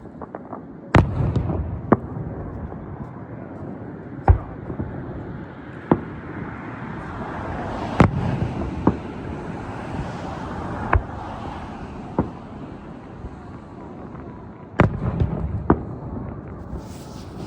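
Aerial firework shells bursting overhead: about ten sharp bangs at irregular intervals over a continuous rumble and crackle of echoing explosions. The loudest bangs come about a second in and near the end.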